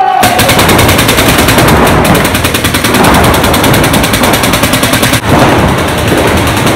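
Paintball markers firing in rapid, continuous strings of shots, with a brief break about five seconds in.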